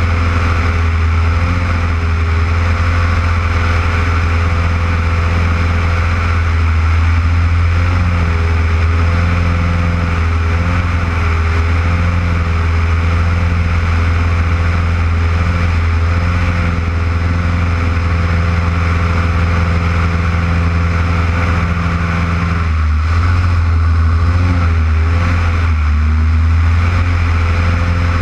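Single-engine aerobatic plane's Lycoming piston engine and propeller droning steadily in flight, heard close up. The engine note wavers briefly about three-quarters of the way through.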